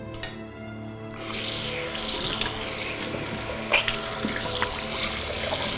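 Bathroom washbasin tap running, water splashing into the sink, coming on about a second in and running steadily after that.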